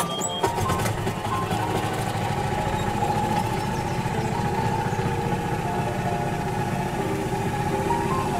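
Small engine of a self-driving park tour cart running as the cart moves along, a rough steady hum that jumps up sharply right at the start. A simple stepped melody plays over it.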